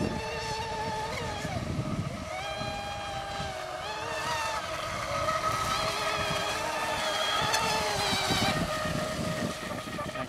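Brushless electric motors of R/C racing boats, among them a 38-inch Seaducer running on 5S LiPo batteries, whining at high pitch, the tones gliding up and down as the boats throttle and turn. A low wind rumble on the microphone runs underneath.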